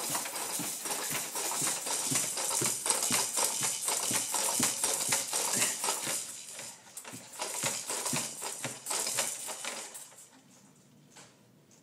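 Baby activity jumper rattling and clattering as a baby bounces in it: its frame, seat and toy attachments knock rapidly and irregularly. The clatter fades and stops about ten seconds in as the bouncing stops.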